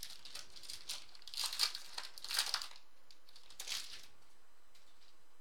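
Shiny foil trading-card pack wrapper crinkling as it is torn open and peeled off the cards, in several short bursts.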